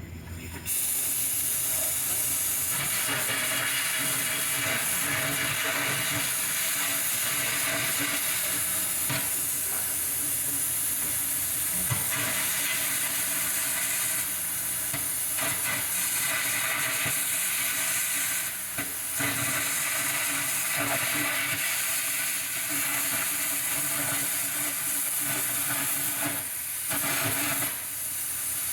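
Continuous sizzling hiss of steel being cut to remove the old mounting brackets from a backhoe bucket. It starts abruptly just after the beginning and breaks off briefly twice, about two-thirds of the way through and near the end.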